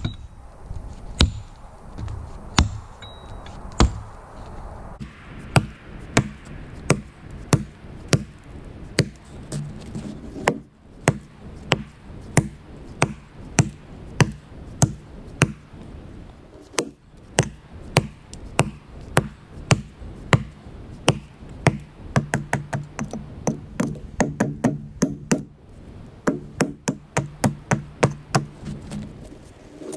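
Double-bit cruiser axe chopping into the trunk of a standing tree to make the face cut. A long run of sharp chops comes about one every three-quarters of a second, then quicker, lighter strokes near the end.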